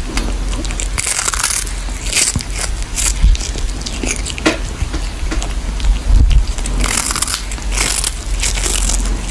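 A cat chewing on a dried fish held in its paws: irregular crisp crunches as it bites into it.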